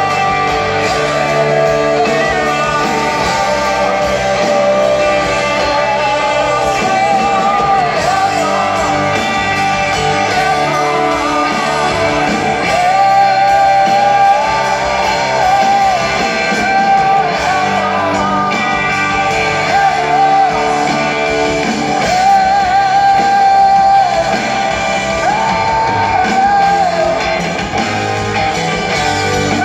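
Live rock band playing, with a male lead singer holding long, wavering high notes over electric guitars and drums, heard from the stands of a large arena.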